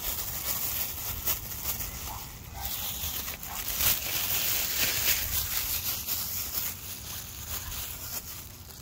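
Rustling and crunching with scattered sharp clicks, loudest in the middle, over a steady low rumble.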